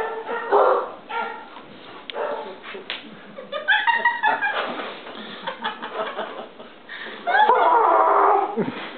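Chewbacca-style growling roars made by a man's voice: several short warbling cries, then a longer, louder held roar near the end, with a few light knocks in between.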